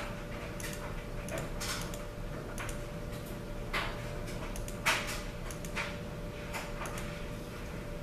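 Light, sharp clicks of calculator keys being pressed, irregularly and roughly one a second, the loudest about five seconds in, over a faint steady hum.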